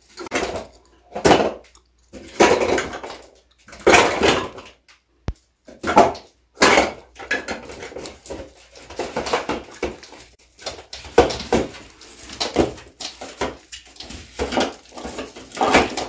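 Plastic toy blocks clattering and rattling against a homemade cardboard-box toy vacuum cleaner as it is pushed over them, in irregular bursts.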